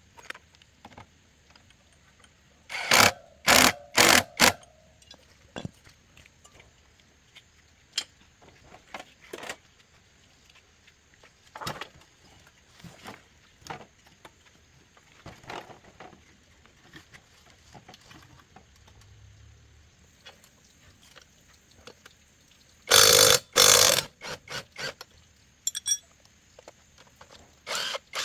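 Intermittent clinks and knocks of metal parts and tools being handled. There is a group of four loud knocks about three seconds in and another loud group near the end, with scattered lighter clicks between.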